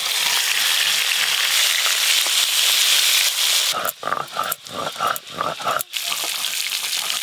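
Hot oil sizzling steadily in a wok as pieces of fish go into it. A little over halfway through this gives way for about two seconds to rhythmic scraping strokes, roughly three a second, of a hand grinding stone (shil-nora) working wet spice paste, and then the sizzling returns.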